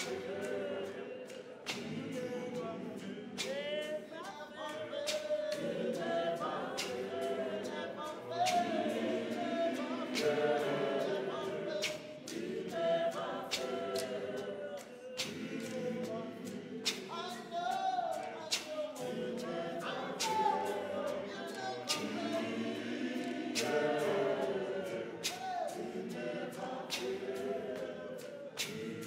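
Zion church choir of women and men singing a cappella in harmony, with a beat of sharp strikes keeping time.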